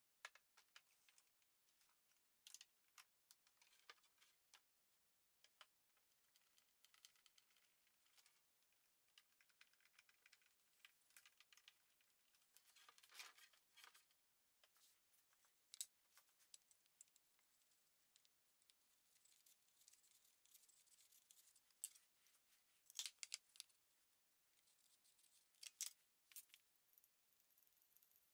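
Very faint workshop handling noise: scattered light scrapes, rubs and small clicks of wood and tools being handled, with a few sharper ticks near the end.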